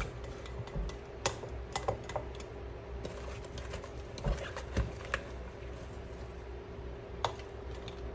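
Irregular light clicks and taps as cucumber and onion slices are pushed through a canning funnel into a glass mason jar, the funnel and slices knocking against the glass. A faint steady hum runs underneath.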